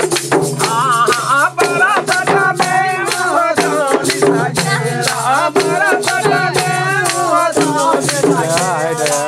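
Live folk dance music: hand-beaten two-headed wooden barrel drums keep a fast, even rhythm under a shaken metal jingle rattle, with voices singing a melody over them.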